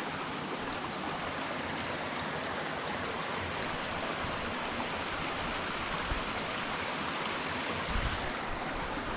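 Waterfall pouring through a narrow rock slot: a steady rush of falling water, with a couple of brief low bumps around six and eight seconds in.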